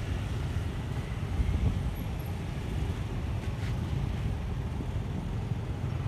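Outdoor ambience: a steady low rumble of wind on the microphone mixed with distant road traffic, swelling slightly about a second and a half in.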